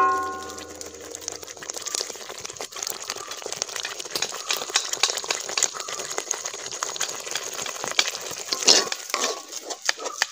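Thick red masala gravy sizzling as it fries in a metal kadai, with a steel spoon stirring and scraping the pan. A metallic ring at the start fades within about a second and a half, and there is one louder scrape near the end.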